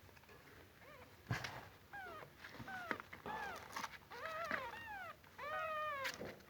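Kitten mewing: a string of short, high calls that each rise and fall, about two a second, starting about two seconds in. A sharp knock comes about a second in, with a few fainter clicks among the calls.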